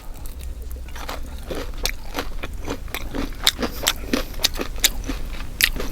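Close-miked chewing of crunchy batter-fried shrimp: a quick, irregular run of crisp crunches starting about a second in.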